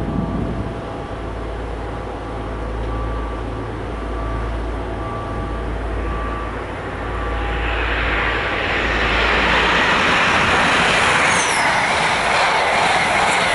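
An Intercity 125 High Speed Train approaches and runs along the platform. A low diesel rumble with faint steady tones is followed, from about eight seconds in, by a loud, steady rush of wheels and coaches on the rails.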